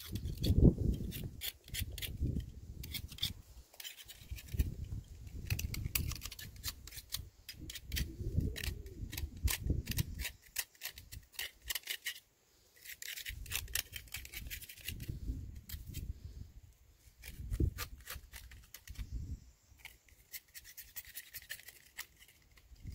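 A knife blade scraping rust and crusted deposits off the metal body of a submersible well pump in quick repeated strokes, with dull knocks from the pump being handled.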